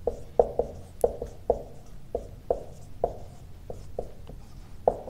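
Marker pen writing on a whiteboard: a run of short, irregular strokes, about three a second.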